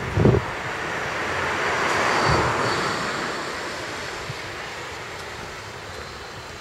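A vehicle passing, its noise swelling about two seconds in and then slowly fading away. A few low thumps at the start, from wind on the microphone.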